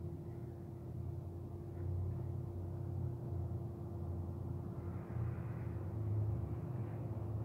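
MAXIA MX-R1000 industrial vegetable slicer running, a steady motor hum over a low rumble, slicing jalapeño halves into strips.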